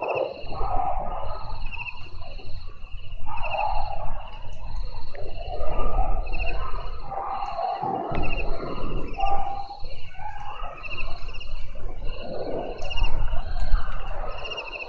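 Thunder rumbling in long swells that rise and fade over a few seconds, with short trilled chirps repeating about once a second over it.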